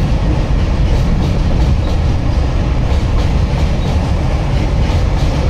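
Goods wagons of a freight train rolling over a steel girder bridge: a loud, steady low rumble with irregular clacks of wheels passing over the rail joints.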